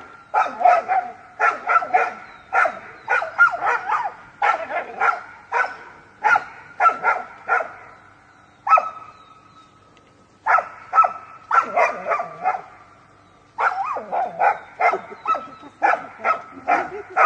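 A dog barking in quick clusters of several sharp barks, with short pauses between clusters and a longer lull a little past halfway.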